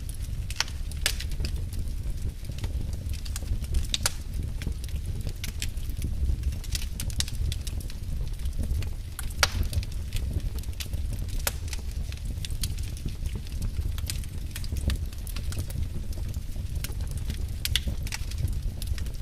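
Wood fire burning in a fireplace, crackling with irregular sharp pops and snaps over a steady low rumble of the flames.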